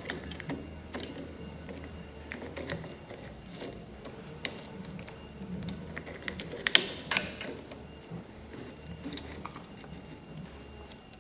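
Scattered light metallic clicks and clinks from fitting and winding the quill return spring and its housing onto the side of a Teknatool Nova drill press head, with a couple of sharper clinks about seven seconds in.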